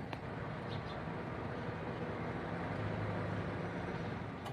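Outdoor traffic noise: a steady low rumble of vehicles on a nearby road that swells about three seconds in as one passes, with a couple of faint clicks.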